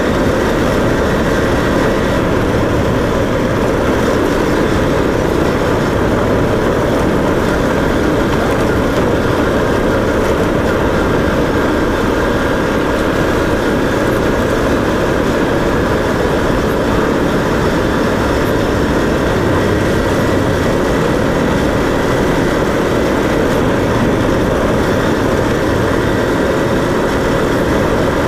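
Steady engine and road noise of a vehicle driving along a road, unchanging throughout.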